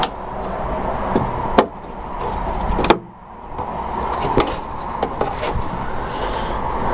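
Scattered clicks and taps of a car's tailgate lock parts and linkage being handled and fitted by hand, over a steady background noise. The sharpest clicks come about one and a half seconds in and just before three seconds.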